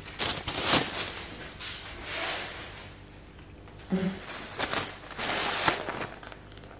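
Thin plastic carrier bag rustling and crinkling in irregular bursts as it is handled and opened, with a brief vocal sound about four seconds in.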